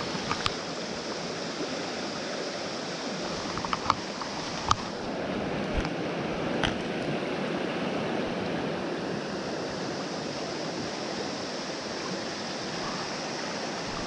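Shallow mountain stream running steadily over stones, with a few brief sharp clicks during the first half.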